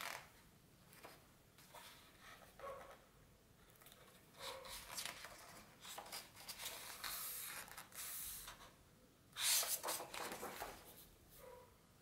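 Paper pages of a large hardcover art book being turned by hand: a run of rustling page flips and sweeps, the loudest flip about nine and a half seconds in.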